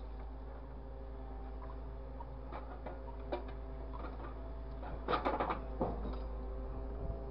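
Grapple truck's engine and hydraulics running steadily with a low hum, under scattered small clicks. About five seconds in, a short cluster of loud knocks and clatter as the orange-peel grapple closes on a piece of scrap metal.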